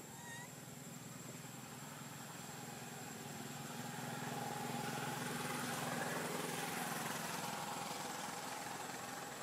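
A vehicle engine running steadily, growing louder to a peak about six seconds in and then fading, as it passes.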